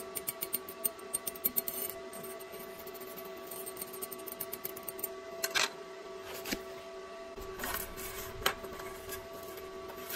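Light metallic clicks and scrapes from a steel welding rod tapping on a steel fillet weld bead, quick and frequent at first, then a few sharper ones spaced apart. A steady hum runs underneath.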